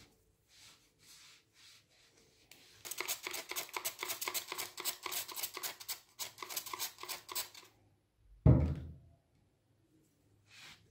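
A trigger spray bottle squirted rapidly over and over onto a brass vase for about four seconds, a dense run of short hissing sprays. A single loud thump comes about a second later, with faint rubbing of a cloth on the brass before and after.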